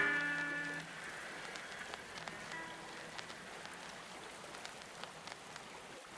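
Steady rain ambience, an even hiss with scattered drop-like ticks, as the last notes of a blues record die away in the first second.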